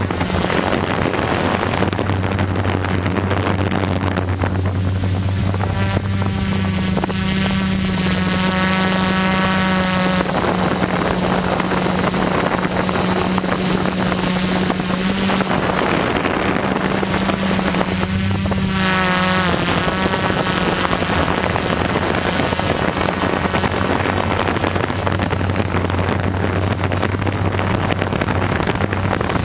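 Quadcopter's electric motors and propellers buzzing steadily close to the microphone, with wind noise. The hum steps up in pitch about five seconds in and drops back down around nineteen seconds in as the throttle changes.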